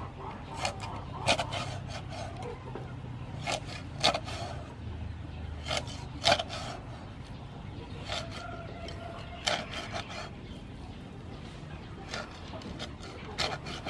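Steel cleaver chopping a whole fish into steaks on a thick round wooden chopping board. About seven sharp, irregular chops, each a knock of the blade through flesh and bone into the wood.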